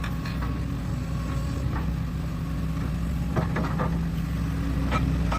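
Excavator diesel engine running steadily, with a few faint knocks or clinks.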